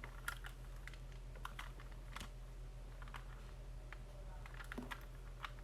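Faint, irregular plastic clicks and taps from a 3x3 Rubik's Cube being handled, over a low steady hum.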